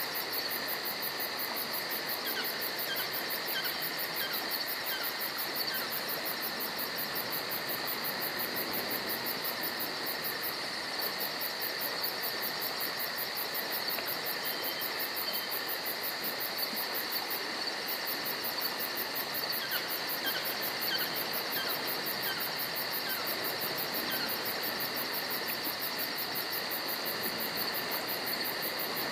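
Chorus of crickets and other insects trilling steadily, with a very high, fast-pulsing buzz that cuts out briefly twice, over a steady hiss.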